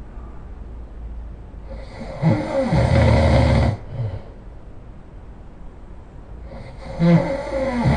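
A person snoring loudly in long rough snores about two seconds each: one begins about two seconds in, followed by a short weaker breath, and the next begins near the end.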